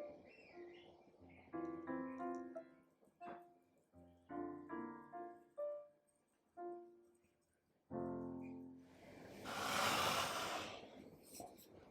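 Gentle solo piano music in short phrases with pauses. About nine seconds in, a loud hissing rush lasts roughly two seconds, the loudest sound here.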